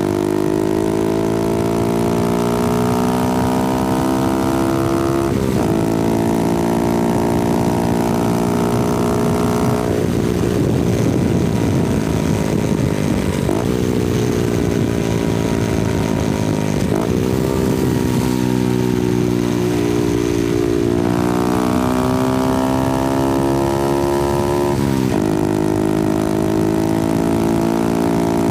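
Honda Grom's 125cc single-cylinder engine and exhaust while riding: the revs climb steadily and drop sharply at several gear changes. About ten seconds in there is a rougher, noisier stretch for a few seconds, with some wind noise throughout.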